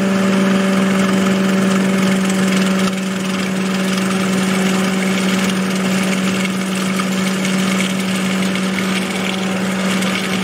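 Food processor motor running steadily with a constant hum while it emulsifies aioli, olive oil being drizzled in a thin stream through the feed tube.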